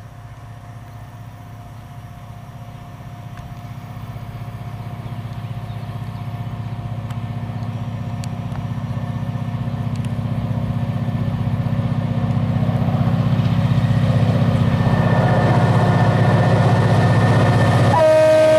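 HŽ Cargo class 2062 diesel locomotive, with an EMD two-stroke engine, hauling a freight train toward the listener; its engine's low rumble grows steadily louder. Near the end the locomotive's horn sounds, a chord of several tones.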